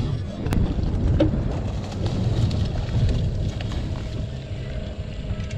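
Low rumbling wind noise on the microphone aboard a boat, with faint splashing from a freshly shot flounder thrashing on the bowfishing line.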